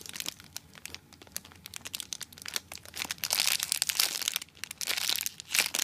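Clear plastic bag around a foam squishy crinkling and crackling as hands turn and squeeze it, with the crackling heavier about halfway through.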